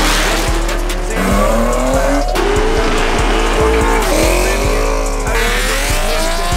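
Several cars revving hard and accelerating away one after another, each engine note climbing in pitch, with tyre squeal, over a hip-hop track with a heavy bass beat.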